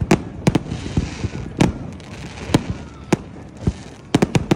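Fireworks display: aerial firework shells bursting in sharp, irregular bangs, around nine of them, bunched together near the end, with a hissing crackle about a second in.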